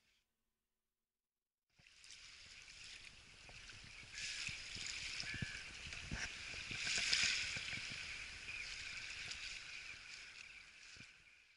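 Small waves washing on a sandy shore, starting about two seconds in after silence and growing to their loudest about seven seconds in.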